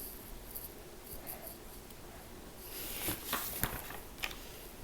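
A paper book's page being turned: a faint rustle with a few light clicks, starting just under three seconds in and lasting about a second and a half.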